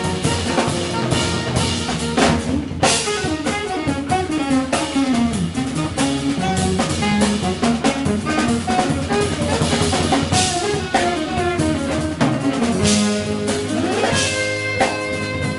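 Live jazz-rock quartet playing: saxophone, electric guitar, electric bass and drum kit, with busy drumming and sliding, bending lead notes.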